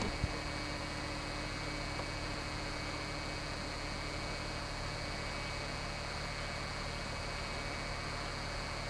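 Steady hiss with a low hum and a few faint steady tones, with no distinct event; a single short click just after the start.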